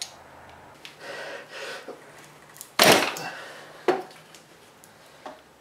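Plastic brake fluid reservoir being pried and worked off an old brake master cylinder on a workbench: two short scraping noises, then a loud knock about three seconds in and a smaller click about a second after.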